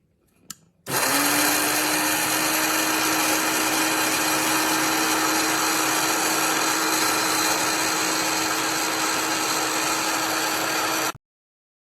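KitchenAid blade coffee grinder's motor running: it spins up about a second in to a steady whirring hum and cuts off suddenly near the end.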